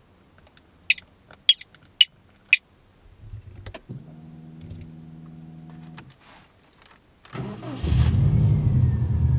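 A few sharp clicks, then a steady hum for about two seconds, then a Subaru Impreza STI's turbocharged flat-four engine cranking briefly and catching, running loudly through the end.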